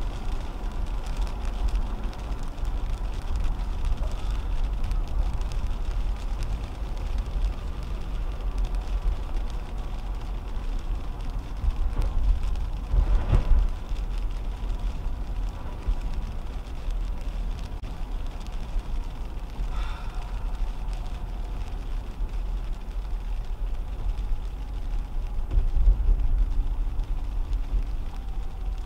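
Steady low road rumble and tyre noise inside a 2010 Toyota Camry driving on a wet road in rain, swelling briefly about halfway through.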